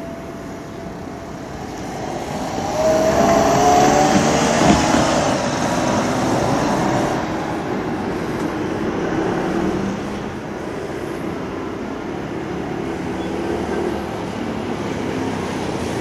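A road vehicle passing close by, loudest about three to five seconds in, then a steady background traffic hum.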